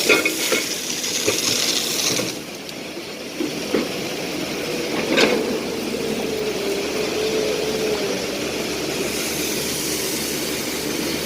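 Excavator engine and hydraulics running with a wavering whine, while split andesite rocks knock and clatter a few times, the sharpest knock about five seconds in.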